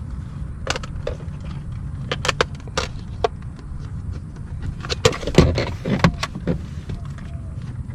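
Scattered clicks and knocks of a handheld car vacuum's plastic parts being handled and fitted together, over a steady low background rumble.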